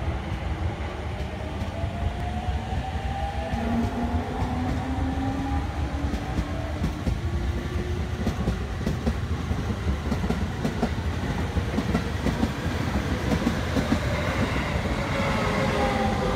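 Electric commuter trains at a station: a steady rumble of wheels on rails with clicks over rail joints, and a faint rising electric motor whine in the first few seconds. Near the end a Shin-Keisei 8800 series train pulls in, its motor whine gliding downward as it slows and the rumble growing louder.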